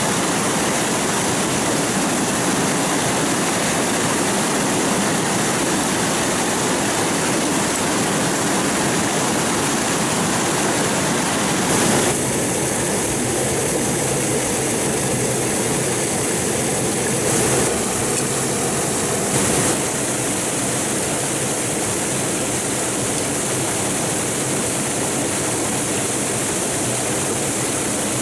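Steady rush of flowing water from a stream or small waterfall, with a few brief sharper knocks about twelve, seventeen and nineteen seconds in.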